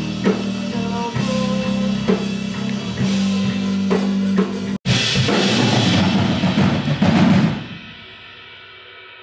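Band recording with a drum kit (bass drum and snare) over a steady low bass note. It cuts out for an instant just before the middle, then comes back as a louder, fuller passage that stops about three-quarters through, leaving a faint ringing tail.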